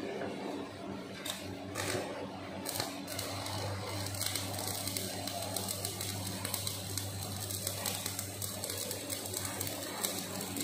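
Stick arc welding on a roller crusher's steel drum. A few short arc strikes come in the first three seconds, then a steady crackling sizzle as the electrode burns, over a low steady hum.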